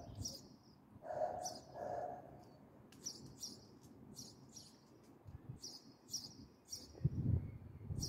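House sparrows chirping in short repeated bursts of two or three chirps. About a second in, two short lower calls from a larger bird sound, and a low rumble comes near the end.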